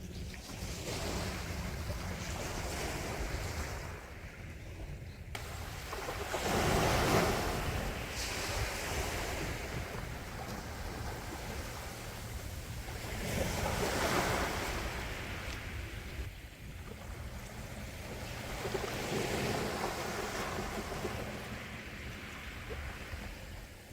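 Gentle sea waves washing onto the shore, each swell rising and falling back, with three larger waves breaking about seven, fourteen and nineteen seconds in.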